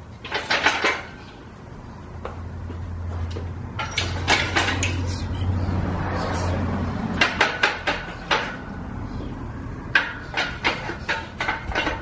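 Steel yoke parts, bolts and tools clanking and clinking as the yoke is put together, in four short clusters of knocks. A low steady hum runs underneath for the first half or so.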